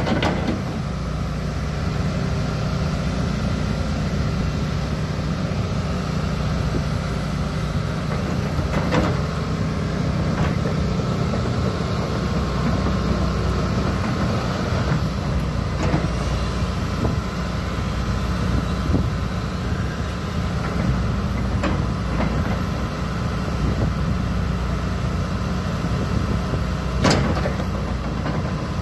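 Hitachi Zaxis 280 crawler excavator's diesel engine running steadily while the boom and arm are worked, with a few sharp knocks, the loudest near the end.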